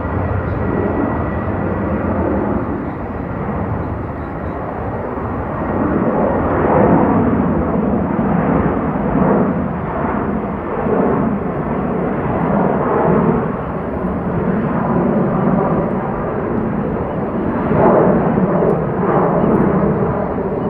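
Jet airliner engine noise, a loud rushing that swells and ebbs, strongest a third of the way in and again near the end.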